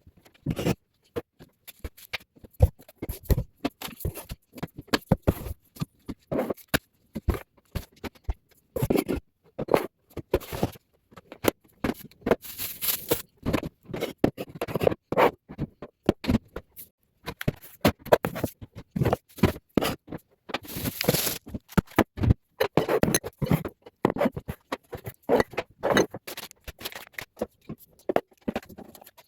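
Sped-up time-lapse sound of a refrigerator being cleaned out: a rapid, irregular clatter of short knocks, scrapes and rustles as items and shelves are handled.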